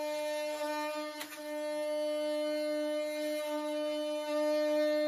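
Metabo HPT 18V cordless oscillating multi-tool running as its blade cuts into a wooden window header overhead: a steady buzzing drone that dips briefly about a second in.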